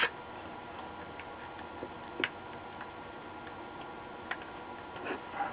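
Scattered light clicks and taps of a circuit board and soldering iron being handled while capacitors are desoldered from a monitor power-supply board: one sharp click at the start, another about two seconds in, one a little after four seconds and a few near the end. Under them is a faint steady hiss with a thin hum.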